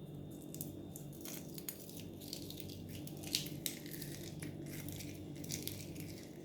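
Irregular small clinks and scrapes of a utensil working through salted egg in a dish, over a steady low hum.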